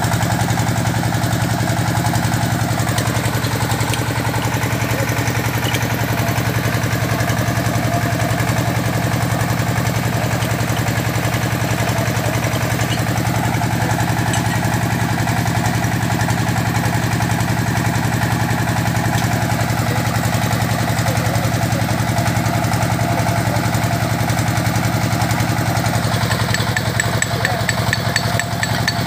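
Engine of an XY hydraulic core-drilling rig running steadily at an even speed. A fast, high ticking joins in near the end.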